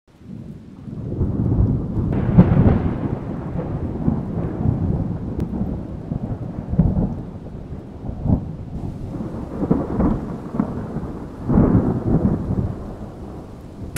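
Rolling thunder from a thunderstorm, rumbling low and swelling loud several times over a steady patter of rain.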